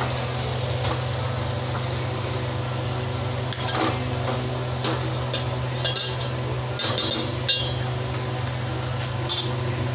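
A metal spoon stirring penne pasta in a metal pot on the stove, with irregular scrapes and clinks against the pot, most of them in the middle of the stretch. A steady low hum runs underneath.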